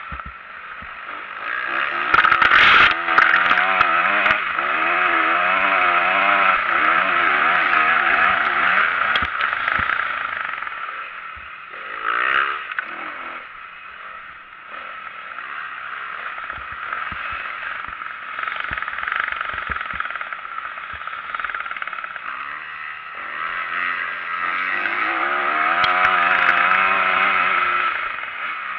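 Motocross dirt bike engine heard from on the bike, revving up and down hard as it rides the track, climbing in pitch through the gears in places. A loud knock about three seconds in.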